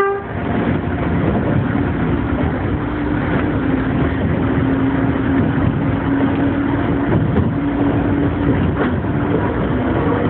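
Gakunan Railway electric train heard from inside the cab as it picks up speed: steady wheel-on-rail running noise with a motor hum that slowly rises in pitch. A short sharp tone sounds right at the start.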